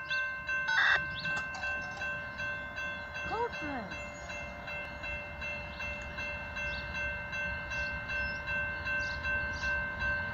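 Railroad grade-crossing warning bell ringing steadily at about two strokes a second, with a faint low rumble underneath.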